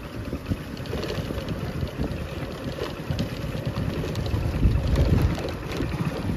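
Motorcycles riding along a bumpy dirt track: engine running under a low, uneven rumble of wind on the microphone, louder about five seconds in.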